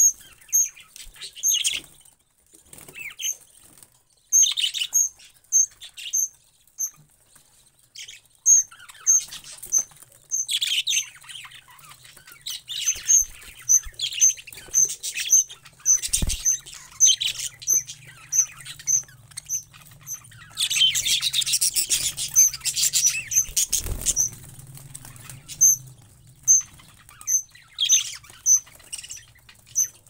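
Budgerigars chirping and chattering in a breeding cage, over a steady run of short high peeps repeating about twice a second. Around two-thirds of the way through comes a denser flurry of chatter and fluttering, and there are two dull knocks.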